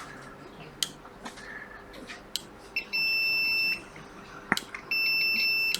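Two steady, high-pitched electronic beeps, each lasting about a second, the second starting about two seconds after the first, with a few light clicks of tools on the board in between.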